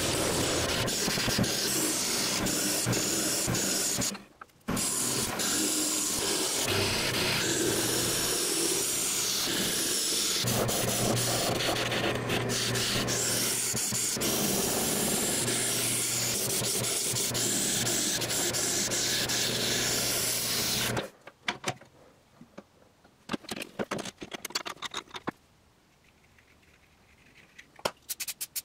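Benchtop wood lathe spinning a log while a hand-held gouge cuts it, making a steady hiss and rasp of shavings over the motor's hum, broken by a short gap about four seconds in. About two-thirds of the way through the cutting stops, leaving a much quieter stretch of scattered light knocks and clicks.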